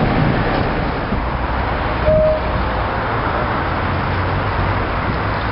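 Class 47 diesel locomotive's Sulzer V12 engine running as the locomotive moves slowly along the track: a steady low rumble, with a short high note about two seconds in.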